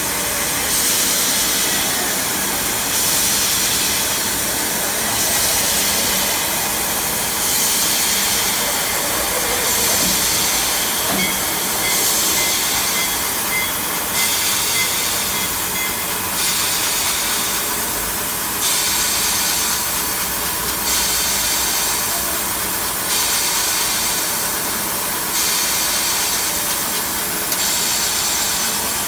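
CNC H-beam drilling line running: a loud, steady hiss that swells and eases about every two seconds.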